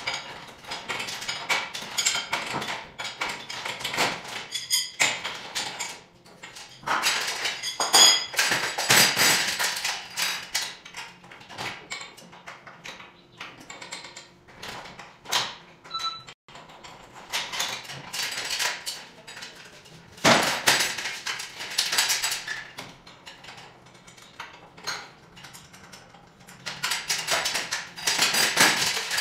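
Metal tools and hardware clinking, tapping and clanking in irregular clusters during work on a garage door spring, with a couple of brief ringing metallic tones.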